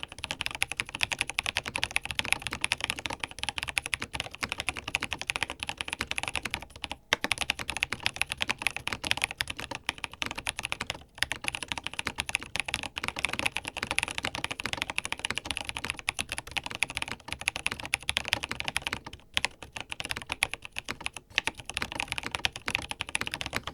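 NCR80 mechanical keyboard with Kam Boquet switches, BSP Classic Beige keycaps, a tape mod and case foam, being typed on fast and continuously, with a few short pauses, in a typing test.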